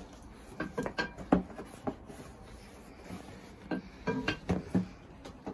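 Spoons scraping and clinking in ceramic bowls as two people eat quickly. The sounds come in two flurries of short knocks and scrapes, about a second in and again around four seconds in.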